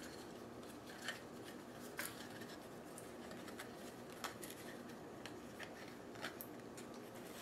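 Scattered small clicks and scratches of a plastic plant pot and potting mix being handled, as an orchid's root ball is pressed into and turned in the pot, over a faint steady room hum.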